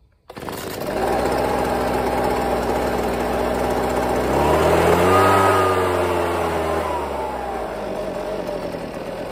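Husqvarna 125B handheld leaf blower's two-stroke engine starting up and running at a steady idle. About halfway through it revs up as it is given throttle, then sags back down instead of holding speed. This is a sign of the carburetion fault that makes it die under throttle.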